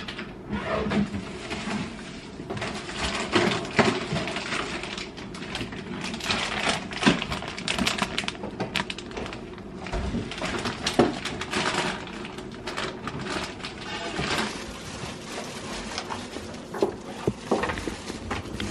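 Plastic bags and wrapping crinkling and rustling as groceries and an appliance are unpacked from a cardboard box, with scattered small knocks and clatter.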